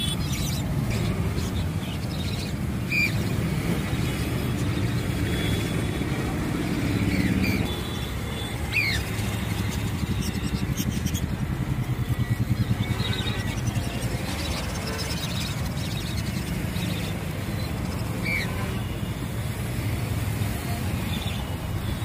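A steady low mechanical rumble, with a few short high chirps from caged birds, about four of them spread through it.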